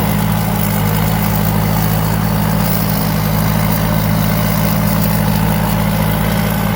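Rice combine harvester's four-cylinder turbo engine running with a steady, even hum that does not change in pitch or level.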